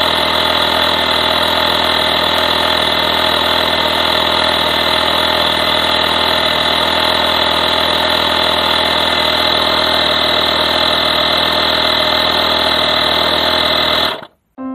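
LASUAVY compact 12 V portable air compressor running steadily as it pumps up a car tyre, a loud unchanging mechanical drone that cuts off abruptly near the end.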